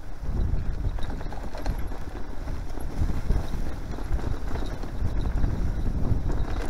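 Mountain bike ridden fast over a bumpy grassy trail: a continuous low rumble of tyres and rushing air, with dense, irregular knocks and rattles as the bike bounces over the ground.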